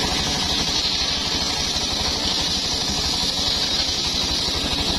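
Homemade engine-driven circular sawmill running steadily: the engine keeps up a fast even beat, with a strong steady high-pitched noise above it.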